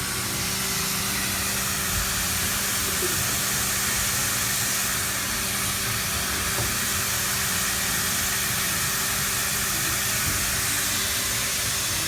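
Air blower at a Build-A-Bear bath station blowing a steady rush of air over a stuffed toy, with a constant motor hum under the hiss.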